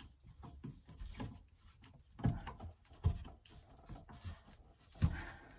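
Phillips screwdriver and screw clicking and scraping against the metal motor bracket of a 5th-wheel landing gear as a screw is worked in by hand, with three louder knocks about two, three and five seconds in.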